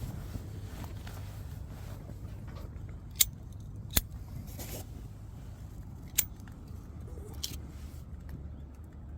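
Campfire burning, with a few sharp pops of burning wood over a low steady rumble.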